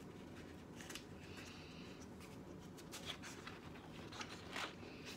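Faint paper rustles and a few soft ticks as the pages of a spiral-bound coloring book are handled and turned, over quiet room tone.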